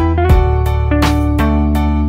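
Instrumental background music with a steady beat and plucked, guitar-like notes.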